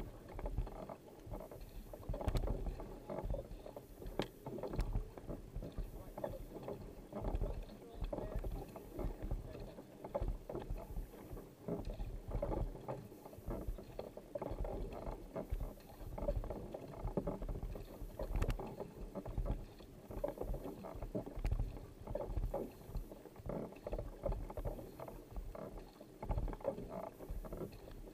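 Kayak paddle strokes: the blades catching and splashing in the water on alternate sides, roughly one stroke a second, over water washing along the hull.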